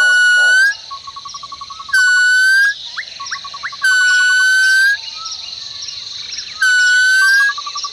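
A bird call: a clear, slightly rising whistled note repeated four times about two seconds apart, with a fast, lower rattling trill between the whistles. A steady high-pitched buzz runs underneath.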